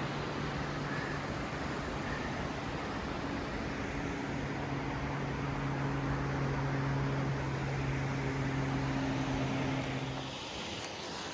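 Steady roar of Upper Yosemite Fall's falling water at heavy snowmelt flow, with a steady low hum under it that cuts off near the end.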